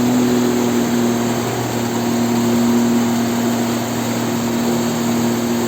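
Outboard motor driving a water-jet unit, running at a steady speed with an even, unchanging drone.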